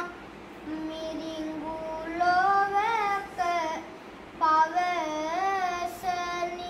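A young boy novice monk's voice chanting Sinhala kavi bana verse, holding long sung notes with wavering ornaments that rise and fall. The chant pauses for breath just after the start and again about four seconds in.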